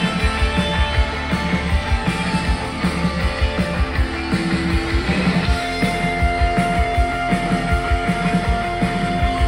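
Rock band playing live through the venue PA: electric guitar over a steady, even drum beat. A long held note comes in about halfway and carries on.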